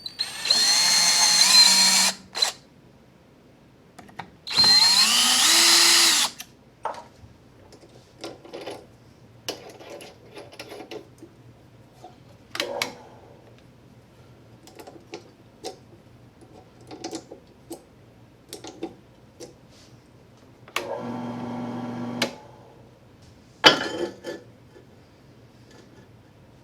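Power drill drilling out the screw holes in the bottom of a woodworking vise: two runs of about two seconds each, each spinning up with a rising whine. Scattered clicks and knocks of parts being handled follow, then a shorter, lower-pitched motor run and a couple of sharp knocks near the end.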